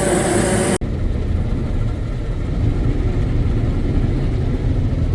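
Heavy diesel farm machinery running steadily. About a second in the sound cuts abruptly from a busy mix with steady whines and high hiss to a low, deep engine rumble.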